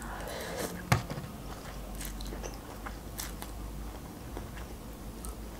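Close-miked mouth sounds of a person eating instant noodles: soft wet chewing with small mouth clicks. A sharper click comes about a second in.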